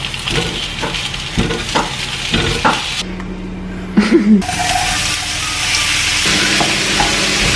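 Kitchen sounds: a few seconds of light clatter, then food sizzling in a pan with a steady hiss from a little past halfway.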